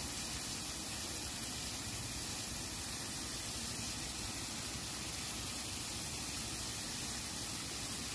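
Steady rushing of flowing stream water, an even hiss with no distinct splashes or knocks.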